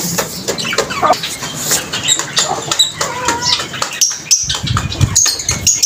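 Domestic chickens and other yard birds calling in short clucks and high chirps, with scattered knocks and rustling throughout.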